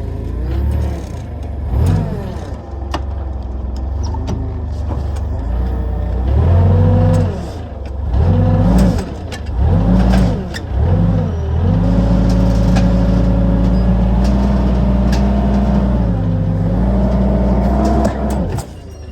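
Forklift engine revving under load as it pulls a car with a strap: the revs rise and fall several times, then hold high for about six seconds before dropping away suddenly near the end.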